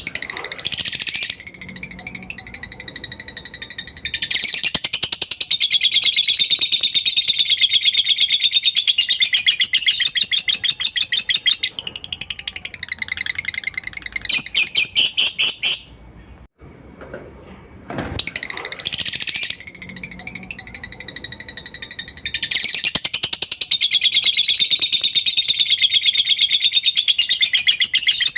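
Lovebird 'ngekek' song: a long, fast, high chattering trill. It breaks off about sixteen seconds in and starts again a couple of seconds later.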